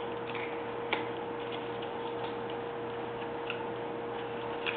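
Carving knife cutting into a small wood block, with scattered light clicks and snaps as chips come away and a sharper click about a second in and again near the end. A steady electrical hum runs underneath.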